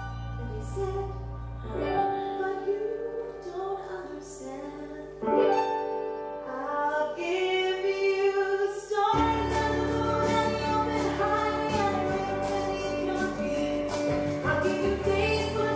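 A woman singing a musical theatre song over instrumental accompaniment; the accompaniment becomes fuller and louder about nine seconds in.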